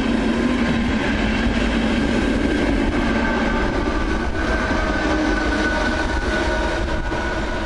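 ČD class 471 CityElefant double-deck electric train passing close by: a loud rumble of wheels on rails with a steady electric whine from its traction equipment that stands out more clearly from about three seconds in.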